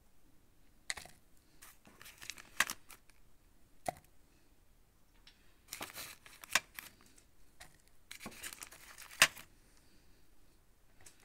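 Irregular rustles, scrapes and clicks of plastic containers being handled while aluminium powder is added onto a pocket digital scale, in short clusters with a sharp click near the end the loudest.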